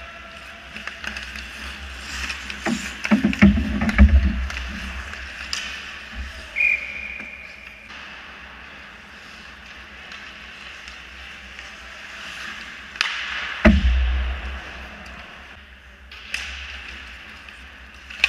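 Ice hockey play near the goal: skate blades scraping the ice and sticks and puck clacking, with two clusters of heavy knocks, about 3 to 4 seconds in and near 13.5 seconds. A short steady high tone sounds about 6.5 seconds in.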